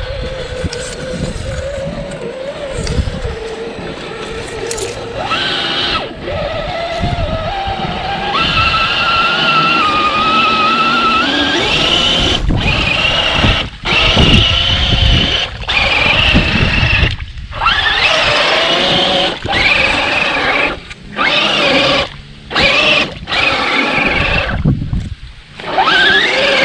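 Electric motor and gear drivetrain of an Axial SCX10-style RC crawler whining as it drives in mud, the pitch rising and falling with the throttle over a low rumbling noise. In the second half the throttle is let off and reapplied several times, so the whine stops for short moments and starts again.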